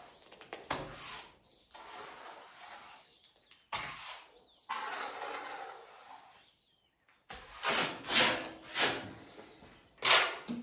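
Steel plastering trowel scraping and spreading mortar along a wall edge in a series of scraping strokes, the later ones louder and quicker.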